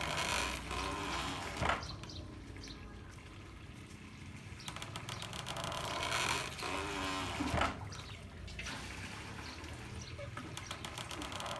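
Handmade water-powered corn mill beating in a steady cycle of about six seconds. Each cycle is a rush of spilling water followed about a second later by a sharp knock, heard twice, with the next spill starting near the end. Water trickles steadily underneath.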